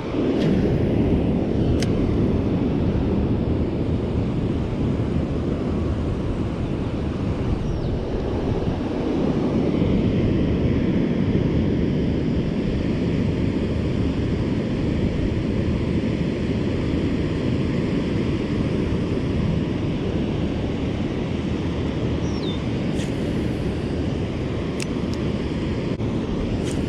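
Steady low rushing noise of wind buffeting the microphone out on the river, with a few faint clicks.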